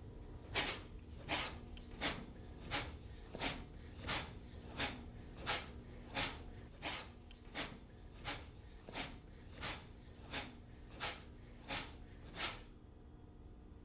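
Sharp, forceful exhalations in an even rhythm, about eighteen short bursts at roughly one and a half per second, as the lobster's strike arm movement is performed; they stop about a second before the end.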